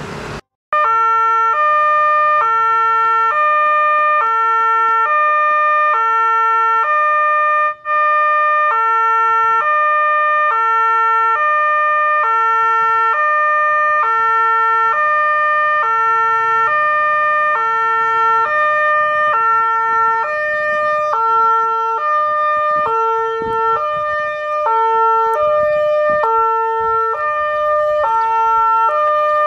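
Railway level crossing electronic warning system (EWS) alarm sounding a repeating two-tone high-low signal, about one cycle a second, starting just under a second in. It warns of an approaching train.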